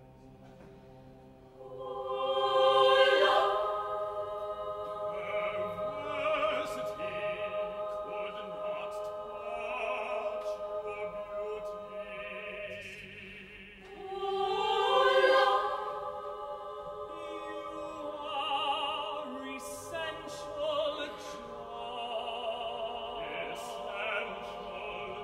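Mixed chamber choir singing sustained, layered chords. The sound swells loud about two seconds in and again around fourteen seconds, then settles into softer held harmonies.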